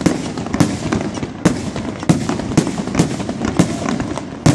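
Fireworks display: aerial shells bursting one after another, sharp bangs about twice a second, over a continuous background noise.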